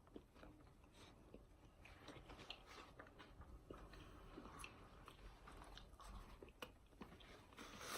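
Faint chewing: quiet, scattered mouth clicks and soft smacking of people eating fast food.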